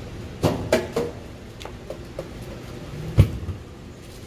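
Clunks and knocks from an ice cream vending machine's dispensing and pickup door: a few sharp clicks in the first second, then one loud thump about three seconds in.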